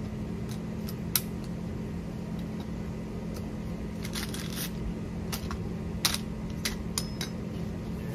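Lever tube bender being worked on 7/8-inch copper refrigerant line: scattered sharp metal clicks and taps from the bender and tube, the loudest about a second in and about six seconds in. A steady low hum runs underneath.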